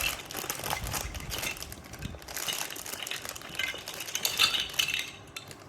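Lego Duplo pieces clicking and clattering as they are handled, a quick run of small knocks and rattles.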